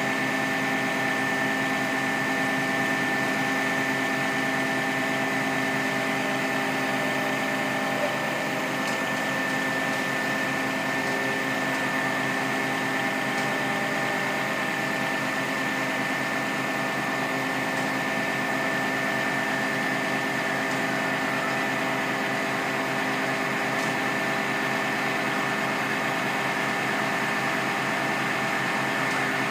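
Hydraulic platform fire appliance running to power its aerial boom: a steady mechanical drone from the engine and hydraulic pump, with a constant high whine over it.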